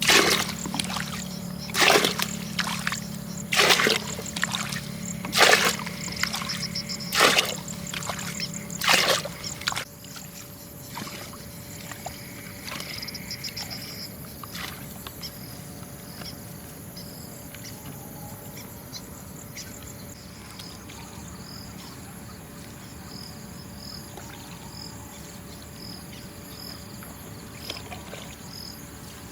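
Water splashing in regular strokes about every two seconds for roughly ten seconds, then stopping. After that, insects chirp steadily with a quick repeating high chirp.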